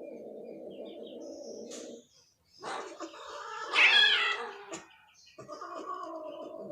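Domestic cat caterwauling: long, low yowls, with a louder, higher wail that rises and falls in the middle. This is the yowling of cats in a mating encounter.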